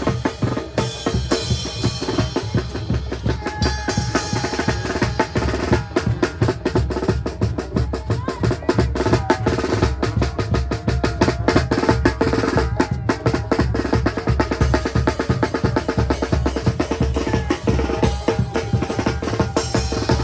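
Mexican banda (brass band) playing live, dominated by fast, dense drumming on bass drum and snare, with a held wind note underneath and short melodic lines from the horns.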